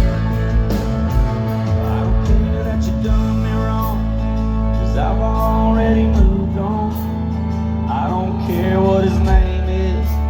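Country song playing: guitar and a steady beat, with a voice singing from about four seconds in.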